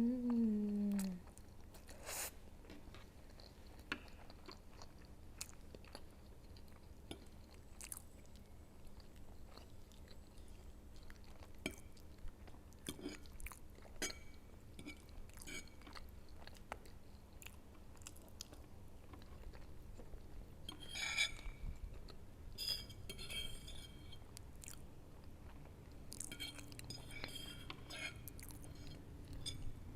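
Close-miked chewing and mouth sounds of someone eating instant noodles, eggs and siomay, with scattered soft clicks throughout. A short falling voice sound comes right at the start.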